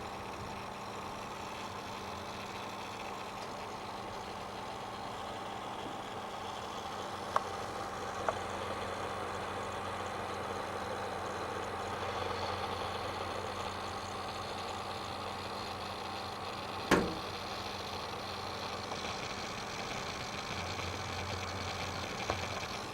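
Seagate Barracuda 2TB 5400 rpm hard drive running with a steady hum and hiss, broken by four sharp clicks, the loudest about seventeen seconds in. This is the strange noise the owner hears from the drive, though software tests show it performing well.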